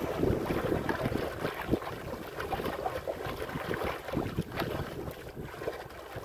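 Wind buffeting the microphone over choppy sea, with waves splashing irregularly against a small wooden boat's hull.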